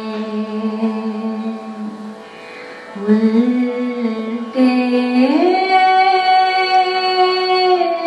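A woman singing long, held melismatic notes in a raga-inflected style. About five seconds in, her voice slides up to a higher note and holds it. A sustained Yamaha CP50 keyboard part plays steadily underneath.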